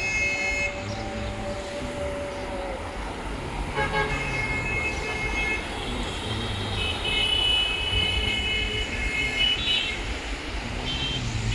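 Road traffic: engines rumbling with vehicle horns honking several times, including a long horn blast from about seven to ten seconds in.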